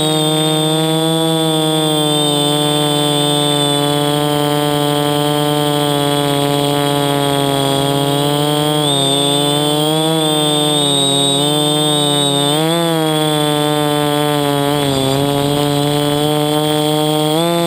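DJI quadcopter's electric motors and propellers buzzing in flight, heard from the camera mounted on the craft. The pitch shifts up and down a few times as the throttle changes.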